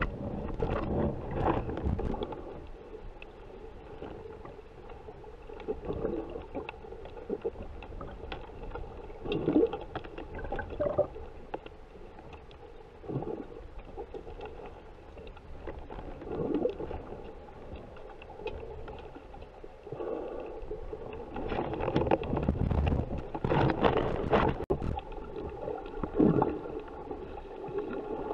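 Muffled underwater water noise through a waterproof camera: sloshing and gurgling with irregular louder surges every few seconds as a snorkeler swims and dives, over a faint steady hum.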